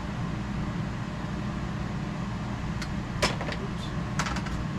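A few sharp snipping clicks from wire cutters working an electrical wire, the loudest about three seconds in and a small cluster near the end, over a steady low hum.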